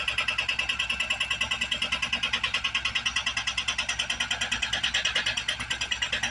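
Hydraulic breaker on an excavator hammering steadily, a fast, even rattle of about ten blows a second.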